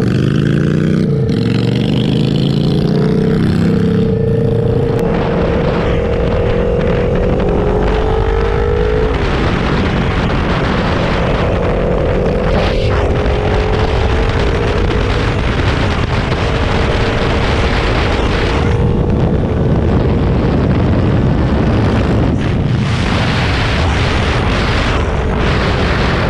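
Motorcycle engine pulling away and accelerating, its pitch rising over the first several seconds, then holding steady at cruising speed. Wind rush on the microphone sits under the engine throughout.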